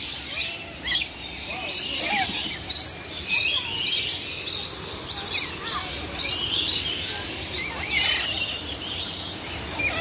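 Many aviary birds chirping and squawking at once: a dense chorus of short, high calls overlapping without a break.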